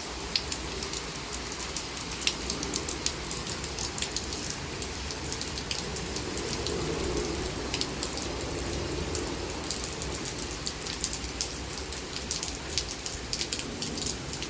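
Heavy rain falling steadily, with many sharp taps of drops striking close by, over a low rumble of gusting wind.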